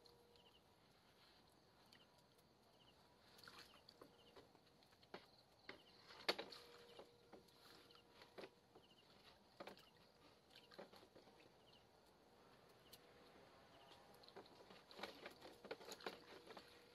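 Near silence outdoors, with scattered faint clicks and taps, a slightly louder cluster about six seconds in and again near the end, and short faint high chirps every second or two.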